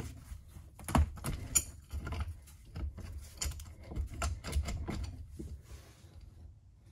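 A deflated scooter tire being worked off a hub-motor wheel rim by hand: irregular knocks, clicks and scraping of rubber against the metal rim, quieter near the end.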